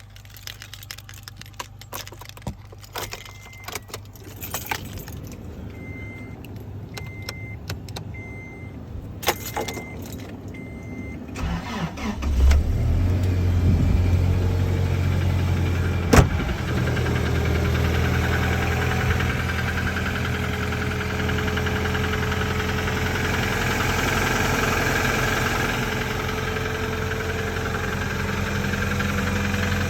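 Keys and clicks inside a Toyota Tacoma, with a chime beeping repeatedly. About twelve seconds in, the 2.7-litre 2TR-FE four-cylinder cranks, starts cold and settles into a steady idle, with a knock that the owner takes for rod knock.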